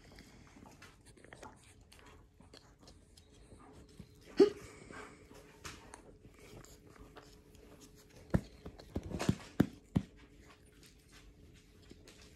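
A small dog gives one short yip about four seconds in. A quick run of sharp clicks and knocks follows near two-thirds of the way through, over soft rustling of dogs moving about.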